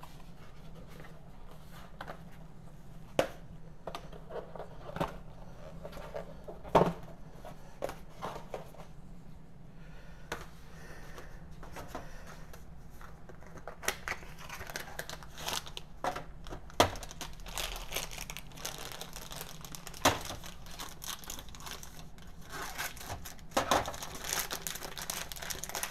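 Ink cartridge packaging being handled and opened: scattered light knocks and taps of small cardboard boxes, then denser crinkling and tearing of wrapping from about halfway on.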